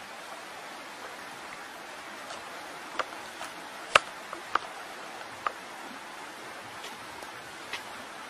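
Steady hiss of outdoor ambience, with a handful of sharp clicks scattered through it, the loudest about four seconds in.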